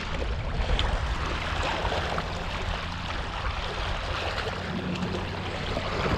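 Steady seaside noise of wind buffeting the microphone, with sea water washing against the rocks underneath a low rumble.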